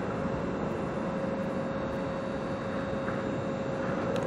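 Steady machinery hum with a constant mid-pitched whine over a noisy rush, from the drop tower ride's lifting equipment while the pod sits near the top of the tower.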